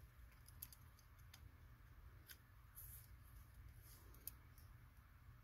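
Faint, scattered small clicks of a keystone jack termination tool and Ethernet cable wires being handled, over a low steady hum; one sharper click about four seconds in.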